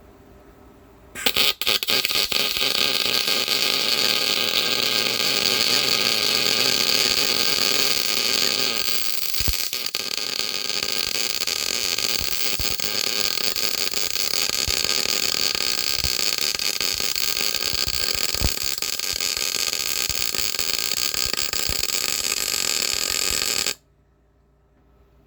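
Electric arc welder laying one continuous weld of about twenty-two seconds, a steady hissing crackle that starts abruptly about a second in and cuts off near the end. The weld is built up on a broken stud in the clutch housing casting, so the stud can be turned out.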